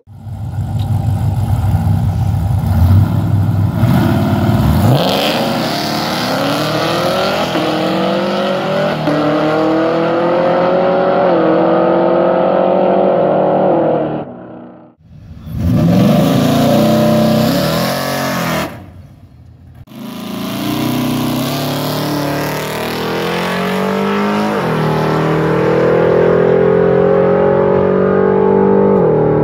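Drag race cars accelerating hard down the strip. The engine pitch climbs and drops back at each gear change. The sound breaks off abruptly twice and starts again.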